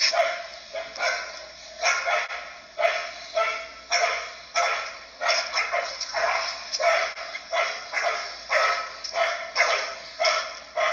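Street dogs barking over and over, about two barks a second without a break.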